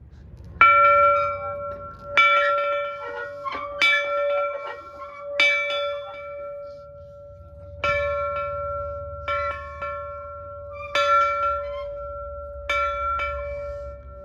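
A large metal bell being rung, struck about every one and a half to two seconds, with each stroke ringing on in one sustained tone between strikes. A low rumble runs underneath.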